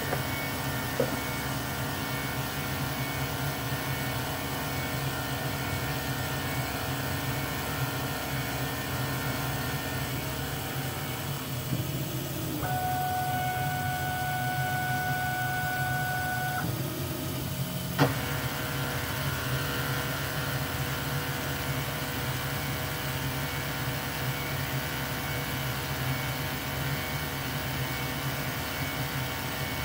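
Precision Matthews PM-25MV benchtop mill, CNC-converted, running its program and milling an aluminium block with an end mill: a steady motor whir and hum. A steady high whine joins for about four seconds midway, and a sharp click comes a little past halfway.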